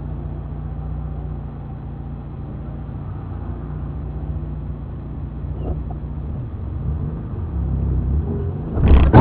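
Car engine and road noise heard inside the cabin while driving slowly, a steady low hum that picks up a little toward the end. A sudden loud knock comes just before the end.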